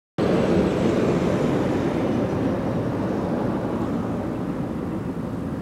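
Heavy goods lorry driving off a ferry, its engine and tyres making a steady low rumble that fades gradually.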